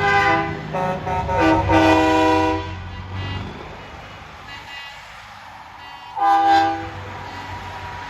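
Truck air horns blown in a quick series of short blasts over the first three seconds, with a truck engine's low rumble underneath, then one more short horn blast about six seconds in.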